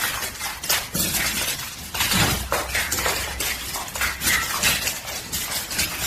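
Hard objects clattering and clinking in many quick, irregular knocks.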